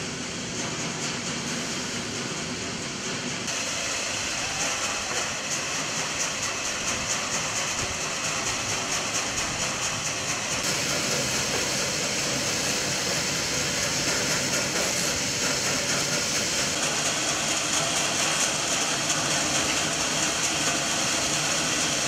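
Almond hulling and sorting machinery running steadily, with a dense clatter of almonds moving through the machine and along the conveyor. The sound changes a few seconds in and again about halfway through, as different parts of the line are heard.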